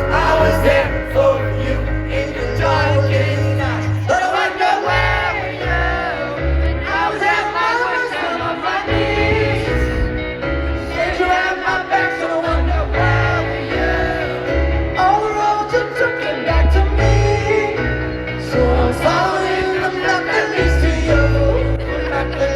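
Live pop-rock band performance: a male lead singer over a full band with a heavy, pulsing bass line.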